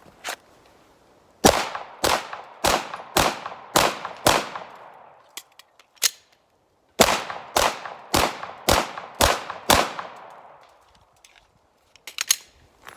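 Glock 17 Gen 5 9mm pistol firing two strings of six quick shots, about two a second, with a short pause between them. Each shot rings out briefly afterward.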